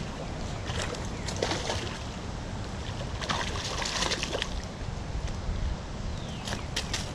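A hooked carp splashing and thrashing in shallow water as it is reeled in to the bank, with louder splashes about a second in and again around three to four seconds in, over a steady low rumble.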